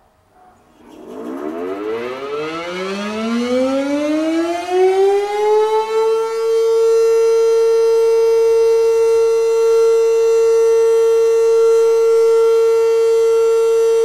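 Darley Champion electromechanical warning siren spinning up: starting about a second in, it rises steadily in pitch for about five seconds, then holds one loud, level tone. This is the steady short-alert signal of a tornado siren test.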